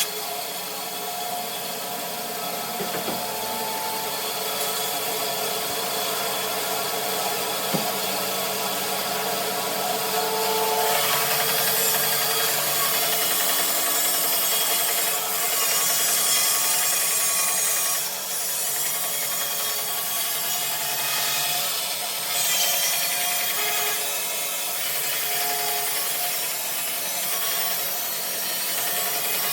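Bandsaw with a new 3/4-inch blade cutting steadily through a dogwood log.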